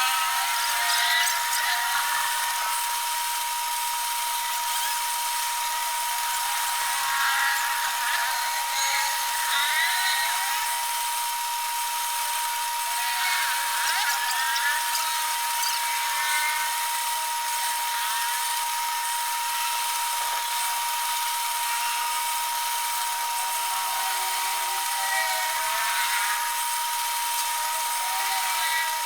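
Metal lathe running with a steady high-pitched whine, with intermittent scraping sounds from the turning tool cutting the metal bush.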